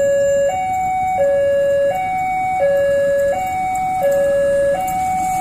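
Railway level-crossing warning signal sounding while the gates are closed for an approaching train. Its electronic two-tone alarm alternates steadily between a lower and a higher note, each held about three-quarters of a second.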